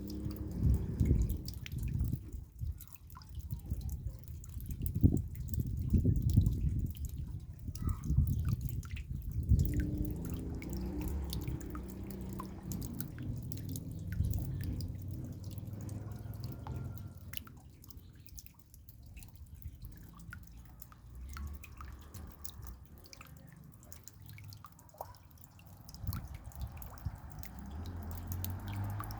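Raindrops dripping and pattering in a steady scatter of small ticks. A low rumble comes and goes under it, strongest in the first third.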